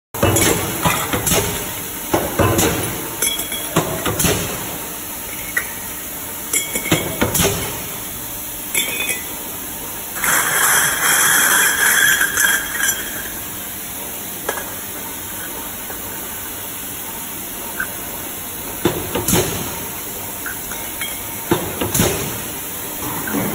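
Factory work at a mechanical power press trimming metal float ball parts: the metal pieces clink and rattle as they are handled and loaded, with sharp knocks at irregular intervals over a steady machine hiss. About ten seconds in comes a louder few seconds of rattling and hiss.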